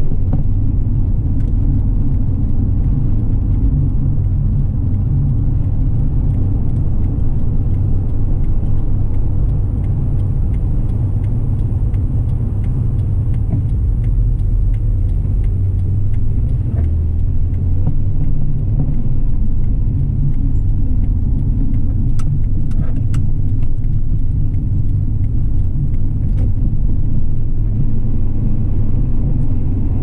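A car driving: steady low engine and road rumble, with a few faint ticks about two-thirds of the way through.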